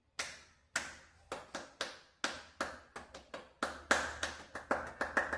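Hand clapping: a run of sharp single claps, about three a second and quickening near the end, made to trigger a sound-activated LED moving-head disco light. A low hum comes in about two-thirds of the way through.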